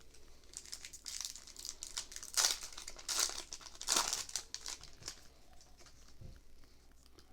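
Foil booster-pack wrapper crinkling and tearing open in a run of crackly bursts, loudest two to four seconds in, then dying away.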